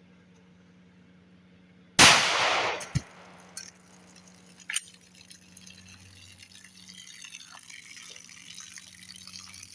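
One shot from a PSA 5.7 Rock pistol firing a 5.7x28mm 40-grain full metal jacket round about two seconds in, followed a second later by a second sharp crack and a few light clicks. Then water starts running and splashing out of the shot-through water containers, growing steadily.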